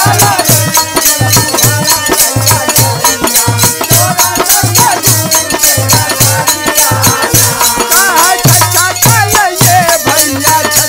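Instrumental passage of Bhojpuri folk music: hand-held jingling clappers (kartal) keep a fast, even beat of about four strokes a second over a low drum and a wavering melody line.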